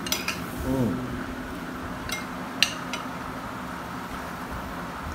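A few sharp clinks of a spoon against a plate while someone eats, the loudest about two and a half seconds in, over a steady low hum.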